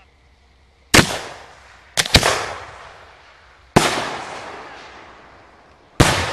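Aerial fireworks shells going off: five sharp booms, two of them in quick succession about two seconds in, each trailing off in a long echo.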